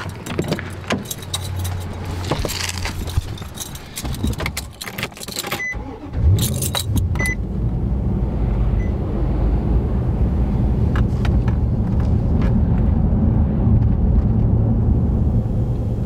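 Keys jangling and a pickup truck's door handle and lock clicking as the door is opened, with two short beeps. About six seconds in the truck's engine starts and then runs with a steady low hum.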